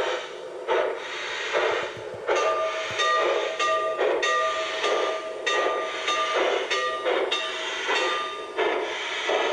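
G-scale model of a Union Pacific 4000-class Big Boy steam locomotive running with its onboard sound: a regular steam chuff about every three quarters of a second, with a steady high tone sounding through the chuffs for several seconds in the middle.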